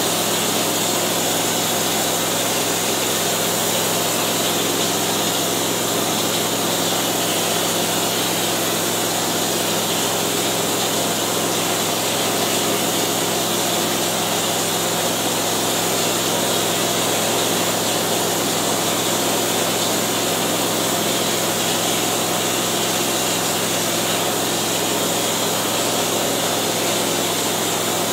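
Texture hopper gun spraying ceiling texture, fed by a running air compressor: a constant motor hum under a steady hiss of air.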